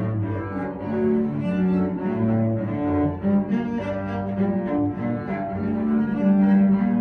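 Two cellos played with the bow as a duet, long held notes in both parts changing every half second to a second.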